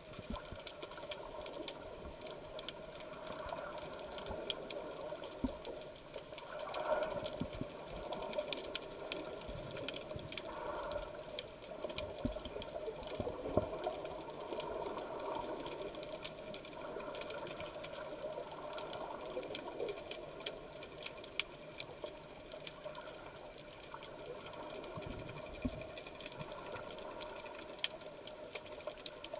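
Underwater ambience during a spearfishing dive: a steady hum under a dense, constant crackle of small clicks.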